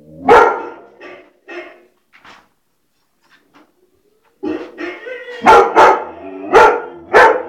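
White shepherd dog barking in short, sharp barks. There is one loud bark at the start and a few fainter ones after it, then a pause. Near the end comes a quick run of four loud barks.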